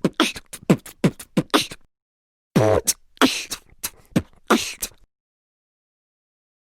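Two short sound-effect clips of rapid clicky, percussive strokes, many with a quickly falling pitch, separated by a gap of dead silence. The first lasts under two seconds and the second about two and a half. Both cut off abruptly, the second before the halfway point.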